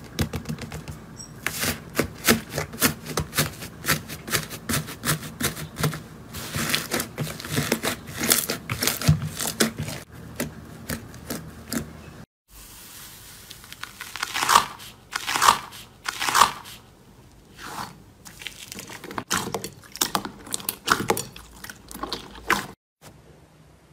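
Slime with small foam beads being pressed and squeezed by hand, giving dense rapid crackling and popping. After a brief break about twelve seconds in, fluffy slime being poked gives fewer, louder squishy pops and crackles.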